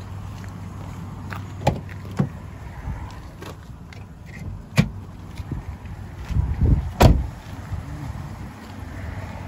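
2010 Dodge Grand Caravan's V6 engine idling with a steady low hum, broken by several sharp knocks and a run of heavier thumps about seven seconds in, the loudest sounds here.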